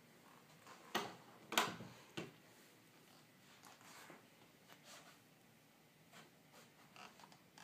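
Three sharp knocks in quick succession about a second in, then faint scattered clicks and rustles: handling noise from a handheld phone camera being carried through rooms.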